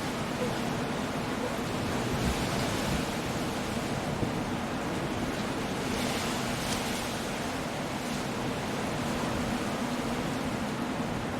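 Stormy sea surf breaking against rocky cliffs under steady wind, a continuous rushing wash of noise that swells briefly about six seconds in.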